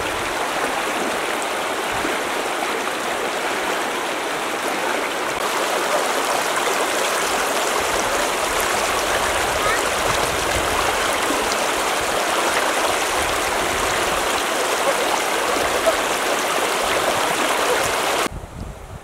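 Shallow stream running steadily over rocks, a continuous rushing, babbling water sound. It drops away abruptly near the end.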